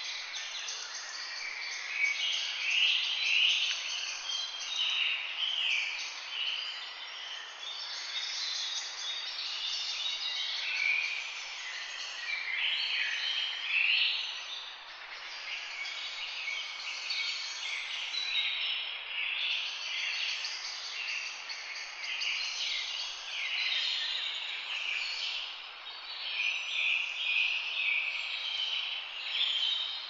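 Many birds chirping and calling over one another in a dense, continuous chorus, with a steady hiss beneath.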